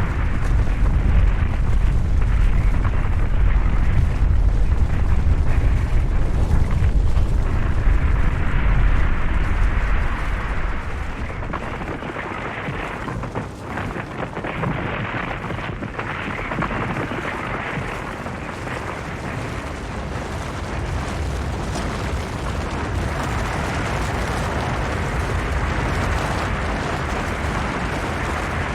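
Snow and rock avalanche: a heavy, deep rumble for about the first ten seconds, then the low rumble falls away, leaving a lighter, steady rushing noise of sliding snow and debris.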